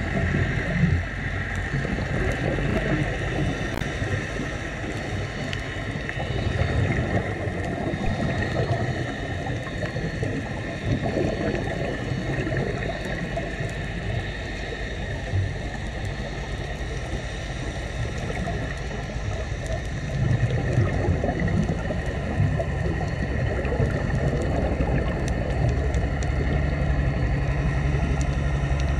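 Underwater sound on a scuba dive: the low steady hum of a boat motor carried through the water, growing louder about twenty seconds in, over a faint continuous crackle.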